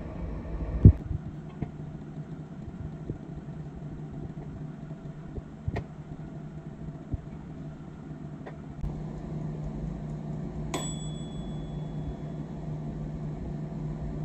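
Filled paper muffin cups being set on the wire rack of a stainless steel steamer pot: a few light knocks and one sharp, ringing metal clink about eleven seconds in. Underneath runs a steady low hum, which gets louder about nine seconds in.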